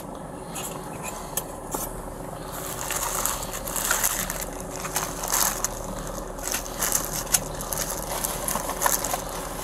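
Close handling noise: rustling and crinkling with scattered small clicks and scrapes, as things are moved about during a search of a car's interior.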